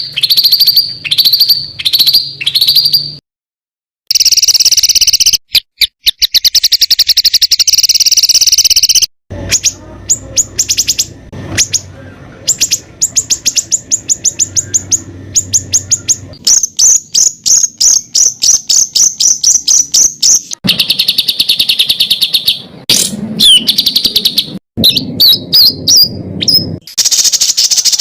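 Songbird training recording ('masteran'): a spliced run of loud, high-pitched rapid-fire trills and fast repeated chattering notes. The phrases change abruptly at hard cuts, with a brief silent gap about three seconds in.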